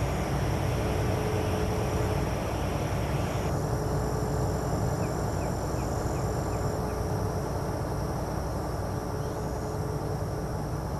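Steady low rumbling background noise with a faint constant hum, and a few faint short chirps around the middle; no distinct event.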